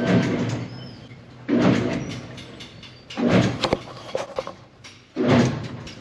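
The knotter drive chain and sprockets of a Massey Ferguson 2100/2200-series baler moving as the baler is rolled over by hand in short pushes, four bursts of chain-and-sprocket noise about every one and a half to two seconds. The mechanism is being turned to line up the chain-timing punch marks.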